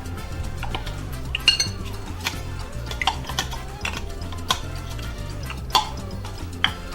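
Kitchen dishes and utensils clinking and knocking, about seven scattered strikes, over background music with a steady bass line.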